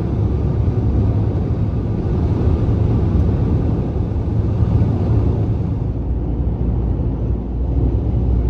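Road noise inside a moving vehicle's cabin at highway speed: a steady low rumble of tyres on the pavement, without a break.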